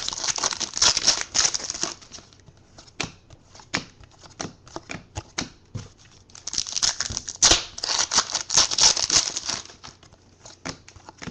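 Trading card pack wrappers crinkling and tearing as packs are opened, in two stretches, with light clicks and taps between them.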